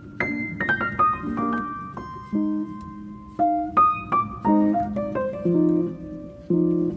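Background piano music: single melody notes over low sustained chords, with a falling run of notes near the start.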